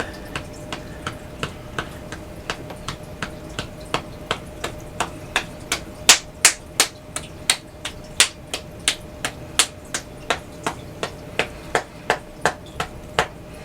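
A hand patting and tapping on the body and arm, a loose fist and a flat palm striking about three times a second in an even rhythm, as in qigong meridian tapping.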